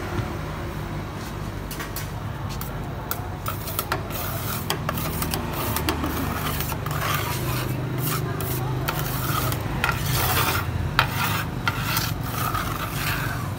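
Metal spatula scraping and chopping frozen ice-cream mixture on the steel cold plate of a Thai rolled ice cream stall: quick, repeated rasping scrapes and clicks against the metal, starting a few seconds in and growing busier after about seven seconds.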